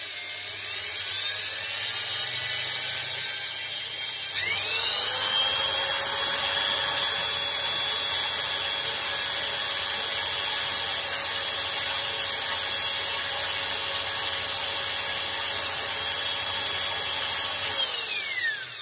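Corded drill whining as it spins a small DC motor's rotor, with a fine needle file held lightly against the commutator to true its uneven surface. The drill speeds up sharply about four seconds in, runs at a steady high speed, then winds down near the end.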